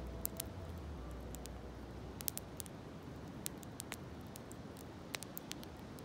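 Wood bonfire crackling, with irregular sharp pops over a soft hiss. Low background music fades out in the first second.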